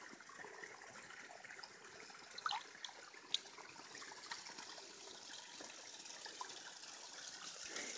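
Faint trickling and light splashing of pond water as a big bass is released from the hand, with a couple of small sharp splashes about two and a half and three and a half seconds in.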